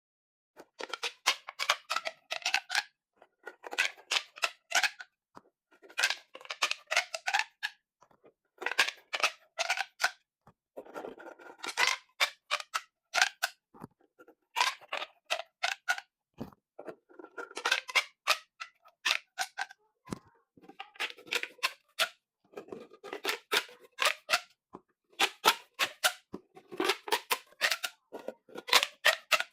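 Pop tubes, ribbed plastic fidget tubes, being stretched and squashed so their ridges snap open and shut in quick runs of crackling clicks. There are about a dozen runs, each a second or two long, with short pauses between.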